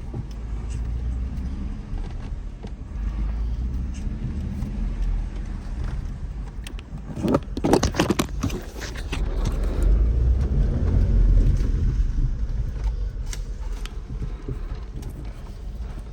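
Cabin noise of a 2007 Jeep Wrangler JK driving: a steady low engine and road rumble, with a burst of rattling and clattering about halfway through as the Jeep jolts over rough road.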